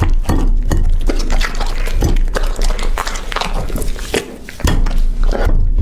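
A puppy eating up close: wet chewing and smacking, with irregular sharp clicks and clinks.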